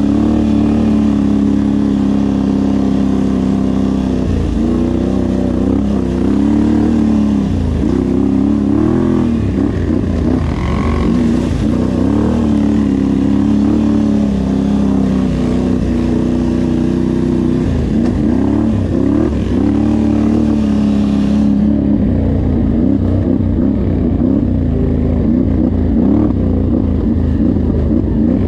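Off-road vehicle engine running under way on a trail, its pitch rising and falling again and again with the throttle.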